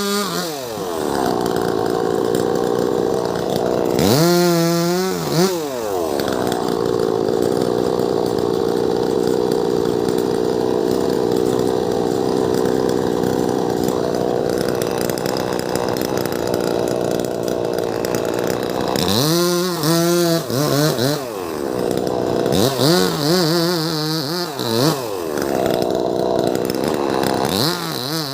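Two-stroke chainsaw cutting through a leaning tree trunk, running steadily under load. It revs up and drops back in pitch about four seconds in, and three more times in the last third.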